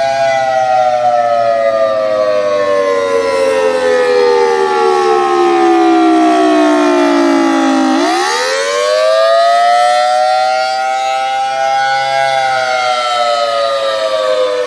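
Federal Signal Thunderbolt 1000T outdoor warning siren sounding the Attack signal. Its loud two-note wail sinks slowly in pitch for about eight seconds, climbs back quickly, holds, and starts falling again near the end.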